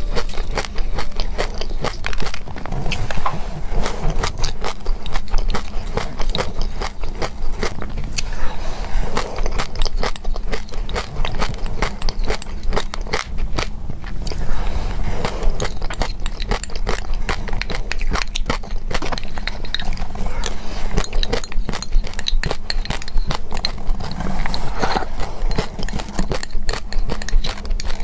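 Close-miked crunchy chewing of a mouthful of mixed seeds and grains in yogurt: a dense run of small, irregular crackling crunches. At times a metal spoon scrapes against the glass mug.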